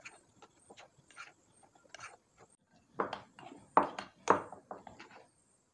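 A spoon stirring a dry flour mix of ground broken wheat, semolina and rice flour in a glass bowl: irregular soft scrapes and scuffs, with a few louder strokes against the bowl in the second half.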